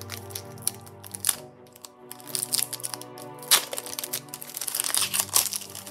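Foil Pokémon booster pack wrapper crinkling and crackling as it is handled and opened, with a dense run of crackles in the second half and one sharp crack about three and a half seconds in. Steady background music plays underneath.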